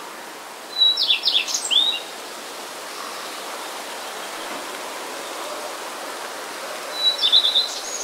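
A songbird sings two short phrases of quick sweeping notes, one about a second in and one near the end, over a steady outdoor hiss of breeze.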